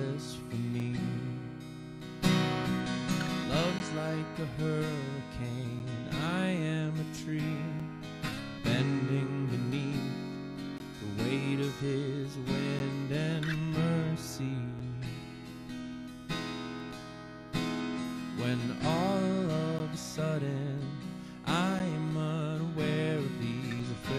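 Acoustic guitar strummed live, playing a worship song.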